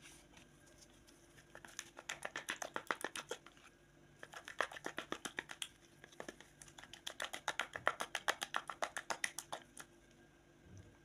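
Plastic spatula stirring a thick paste briskly in a plastic bowl, clicking against the bowl's sides about eight times a second in three runs of a few seconds each.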